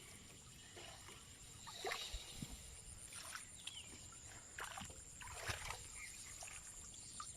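Faint scattered splashes and sloshing of shallow marsh water as a fishing net is worked, over a steady high-pitched whine.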